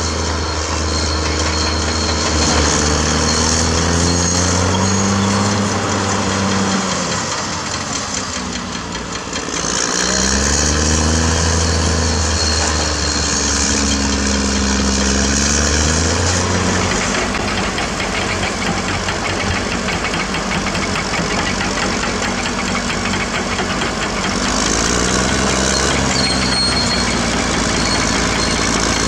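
CAT D6R bulldozer's diesel engine running hard, its pitch surging up and easing back down several times as it revs and works under load.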